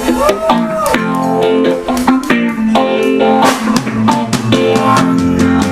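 Live band playing: electric guitar over a drum kit, with steady drum strikes.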